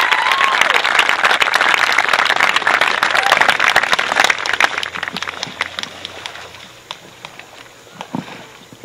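Crowd clapping and cheering, with a few whoops at the start, dying away over about six seconds.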